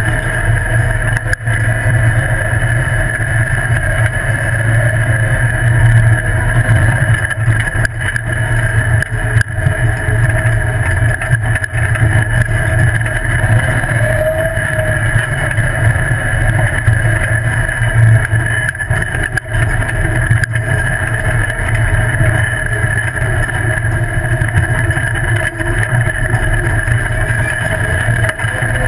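Off-road buggy driving down a rough dirt trail: its engine runs steadily under a heavy low rumble, with a few short knocks as it goes.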